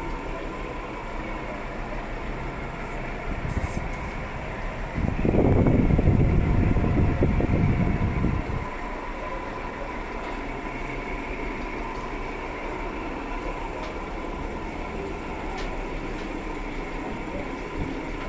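Air conditioner running: a steady mechanical hum with a fixed whining tone, swelling into a louder low rumble for about three and a half seconds near the middle.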